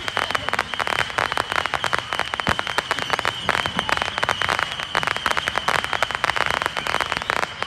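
Fireworks crackling: a dense, continuous stream of small sharp pops with no single big boom.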